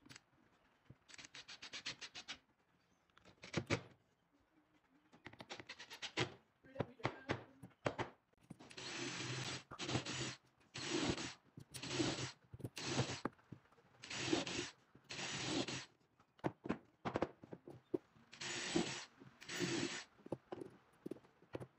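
Cordless power tools working pine: a cordless driver rattling a screw into the wood about a second in, then a cordless drill boring a row of holes in short bursts of a second or less, nine or so in quick succession, the motor hum rising with each bite into the wood.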